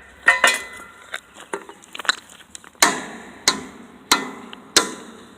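Sharp knocks of a hard object being struck repeatedly: a couple near the start, then four evenly spaced hits about two-thirds of a second apart.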